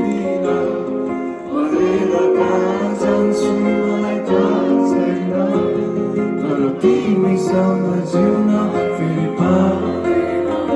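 Live band music with a voice singing over the instruments.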